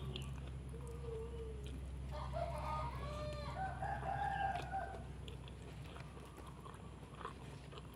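Chickens clucking, then a rooster crowing from about two seconds in for nearly three seconds.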